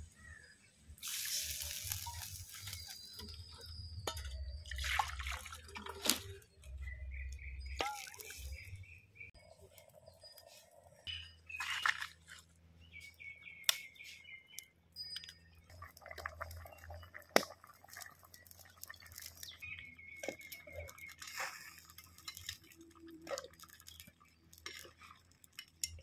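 Crab gravy simmering in a steel kadai over a wood fire, bubbling and popping, with scattered sharp clicks and crackles.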